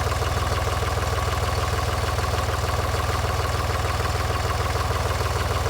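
Small farm tractor's engine idling steadily, with an even, fast pulse.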